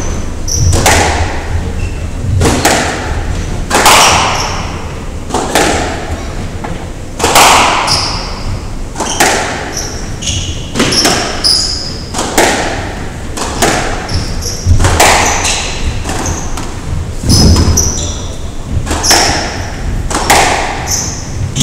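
Squash rally: the ball is struck by rackets and smacks off the front and side walls every second or so, each hit echoing around the court. Short high squeaks of shoes on the wooden floor come between the hits.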